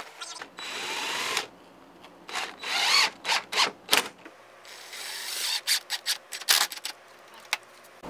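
DeWalt 20V cordless drill driving screws into the wooden framing in several bursts of a second or so, its motor pitch rising as each burst starts.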